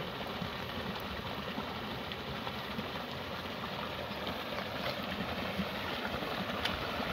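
Muddy rainwater runoff rushing down a small eroded channel: a steady, even rush of flowing water.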